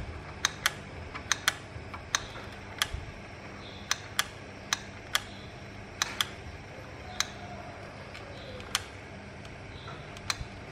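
Soldering a small eight-pin chip onto a circuit board: a string of short, sharp clicks at irregular intervals as metal tool tips tap against the chip's pins and the board, over a low steady hum.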